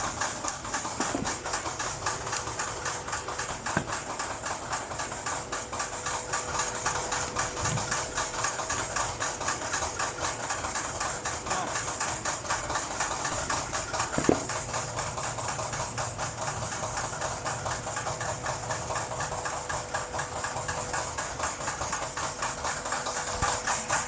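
Automatic corrugated-carton flexo printing, slotting and die-cutting machine running, a steady mechanical clatter with a rapid, regular beat over a steady hum and a high hiss. One sharp knock stands out about 14 seconds in.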